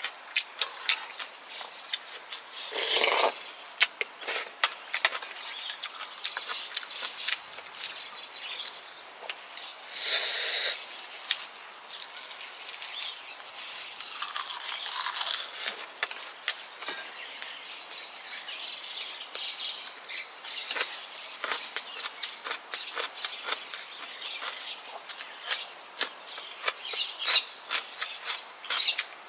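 Close-up eating sounds of a person chewing kimchi stew, rice and side dishes: frequent wet lip-smacks and mouth clicks, with two longer noisy slurps about three and ten seconds in.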